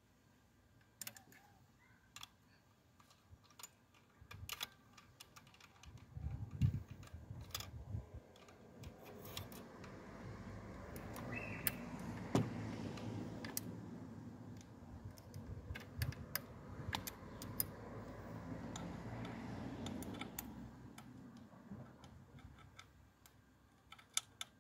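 Scattered small metal clinks and rattles of tools and parts being handled in a car's engine bay, with a few sharper knocks. A louder stretch of low, steady noise runs through the middle.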